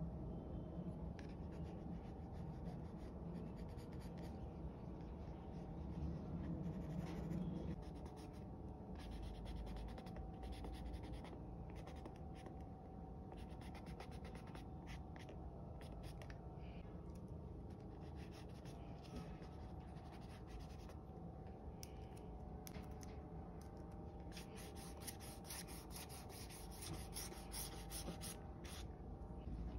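Eraser rubbing on drawing paper over pencil lines in many short strokes, busiest near the end.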